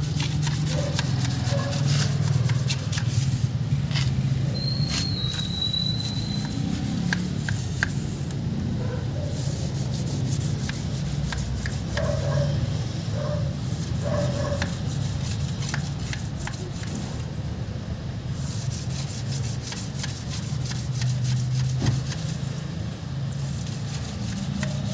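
A thin steel rod cut from a wiper blade jabbed rapidly up and down inside the tubes of a truck radiator core to scrape them clear: a fast metallic rasping that breaks off briefly every few seconds.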